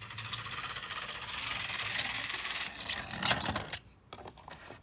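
Plastic toy train set mechanism whirring with a fast, rattling buzz for a few seconds. It stops, and a few light plastic clicks and knocks follow.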